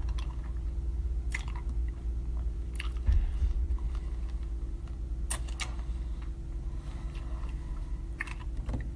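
Mouth clicks and smacks close to a phone's microphone, a few sharp ones scattered through, over a steady low room hum.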